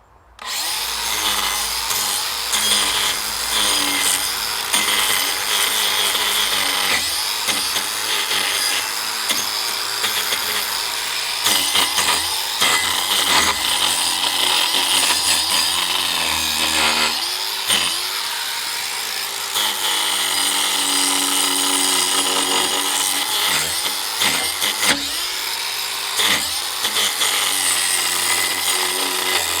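DeWalt 18V XR cordless angle grinder with a wood carving disc, running and cutting into a log to strip its bark. It starts abruptly about half a second in, and the motor's pitch dips and recovers again and again as the disc bites into the wood.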